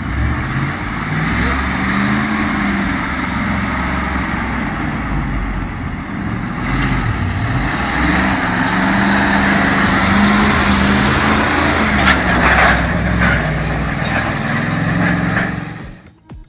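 Heavy truck engine running under load, its pitch rising and falling, with a few sharp knocks about twelve seconds in.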